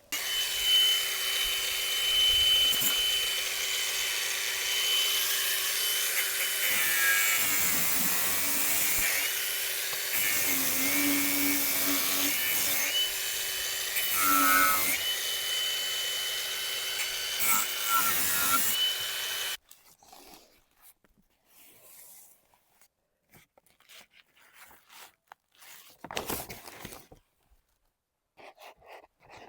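Electric power saw cutting through wall boards, its motor whine dipping several times as the blade bites into the wood. It cuts off abruptly after about twenty seconds, leaving only faint scattered clicks.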